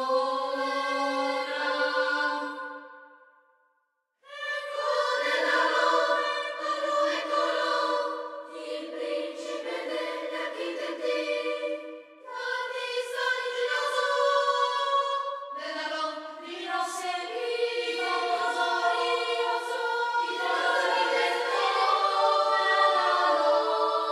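Children's choir singing held notes in several parts. The singing fades out about three seconds in, stops for a moment, then comes back in and carries on with overlapping sustained chords.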